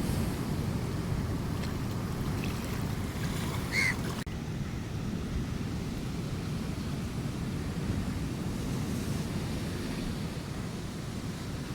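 Sea waves washing on the shore with wind buffeting the microphone, a steady low rush. A brief high squeak sounds about four seconds in, just before an abrupt cut to another take of the same surf.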